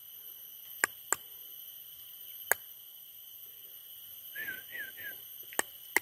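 Forest ambience: a steady, high insect drone at several pitches, a few sharp clicks, and about four and a half seconds in, three short whistled chirps.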